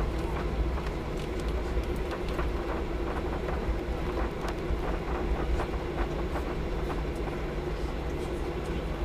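Cabin noise of a Boeing 737-800 taxiing: a steady engine hum over a low rumble, with a stream of irregular light knocks and rattles as it rolls along the taxiway.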